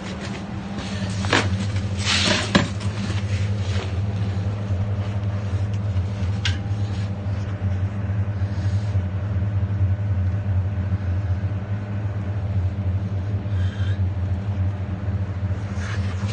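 A steady low mechanical hum, with a few sharp knocks or clanks: one about a second and a half in, a cluster about two seconds in, and another about six and a half seconds in.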